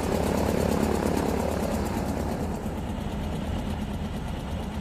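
Junkers Ju 52's three radial engines running steadily with a deep, even burble.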